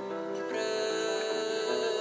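Solo acoustic guitar played fingerstyle; about half a second in a fuller chord sounds and rings on.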